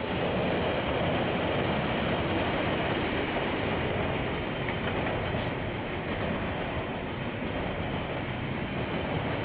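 KiwiRail train passing close by: the diesel locomotive goes by, followed by a run of wagons, with a steady rumble of wheels on the rails. It grows louder over the first second as the train nears.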